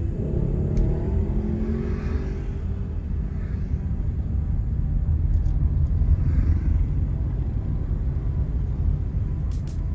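Steady low road rumble of a car on the move. Over the first few seconds a vehicle's engine note sinks gently in pitch and fades into the rumble.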